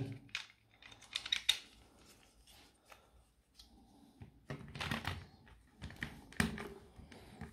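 Plastic casing of a Makita 18 V lithium-ion battery pack being fitted back together by hand: a few scattered clicks and knocks as the top cover is pressed onto the base, with a cluster of them about a second in and more around five and six and a half seconds.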